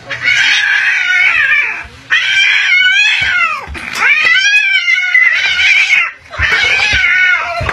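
Domestic cat yowling loudly in four long, wavering cries with short breaks between them.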